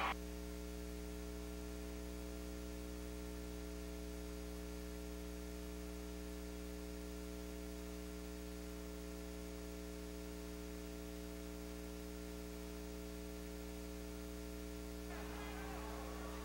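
Steady electrical mains hum, a low buzz with no other sound, left where the recording's sound has dropped out. About fifteen seconds in, faint, indistinct sound comes back in under the hum.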